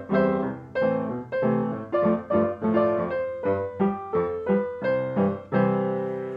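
Piano music: chords and melody notes struck roughly twice a second, each dying away, with a longer held chord near the end.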